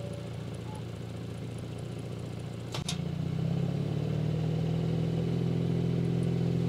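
Audi S4's turbocharged 3.0-litre V6 idling in Park. A sharp click comes near the third second, then the idle through the exhaust gets louder and stays louder as the exhaust valves open after the drive mode is cycled back to Dynamic.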